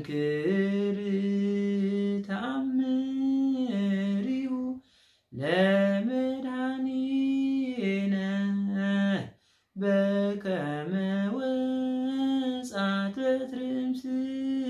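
A man singing an Orthodox Tewahedo hymn (mezmur) solo and unaccompanied, in three long phrases of drawn-out held notes that step up and down, with brief breaths between them.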